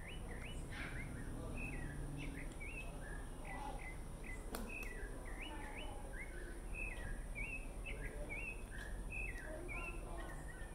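Small birds chirping continuously, many short quick calls overlapping, over a low steady background rumble. A single sharp click sounds about four and a half seconds in.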